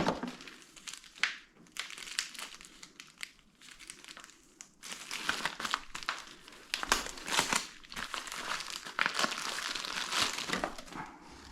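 Packaging crinkling and rustling as hands rummage through a box of loose contents: irregular crackles and scrapes that come and go throughout.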